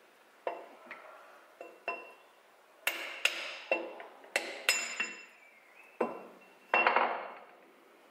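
Hammer blows on a steel drift driving a bearing out of a Lambretta TS1 engine casing. There are about a dozen sharp, uneven metallic strikes, each ringing briefly, with a quick run in the middle and a heavier cluster near the end, until the bearing comes out.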